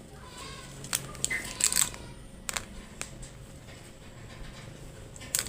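A handful of short, irregular crunchy clicks, most of them in the first couple of seconds and one more near the end.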